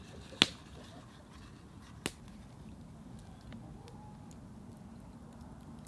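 Two sharp clicks about a second and a half apart, the first much louder, while fresh herbs are pressed into a cast-iron teapot, with faint scattered ticks over a steady low background.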